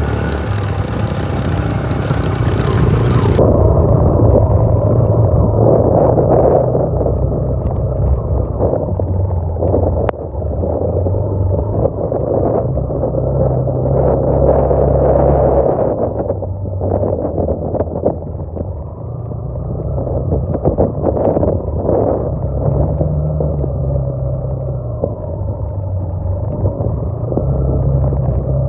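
Motorcycle engine running under way over a rough, stony track, with rattles from the rocky surface and wind noise.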